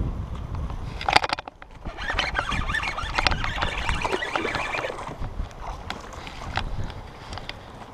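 A hooked bass splashing and thrashing at the water's surface as it is reeled toward the boat, loudest from about two to five seconds in. Wind rumbles on the microphone at the start.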